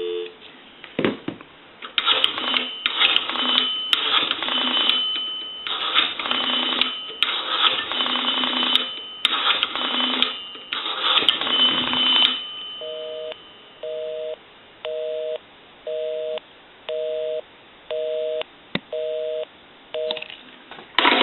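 Rotary dial of a Western Electric 223G payphone dialing a seven-digit number, each digit a short run of clicks as the dial spins back. Then a busy signal: eight steady two-tone beeps about a second apart, the line engaged as expected.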